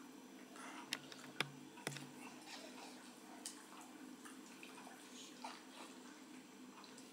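Quiet wet licking and mouthing sounds of a Doberman puppy and an adult Doberman nibbling at each other's mouths, with a few sharp clicks in the first two seconds.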